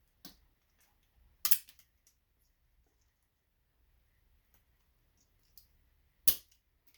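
A few sharp clicks and snaps of small plastic parts being worked by hand, from pulling a bulb out of a Christmas-light socket; the two loudest come about a second and a half in and near the end.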